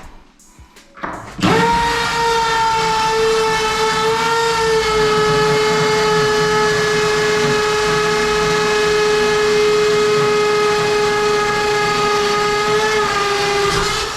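Power drill running at a steady speed for about twelve seconds, a loud even whine that starts sharply, sags slightly in pitch near the end and stops: boring a hole through the wall tile for a hinge anchor.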